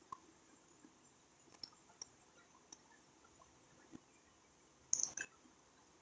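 Faint, scattered clicks of a spatula against a stainless-steel pan of fish curry, with a louder clatter of a few quick knocks about five seconds in as the spatula is handled.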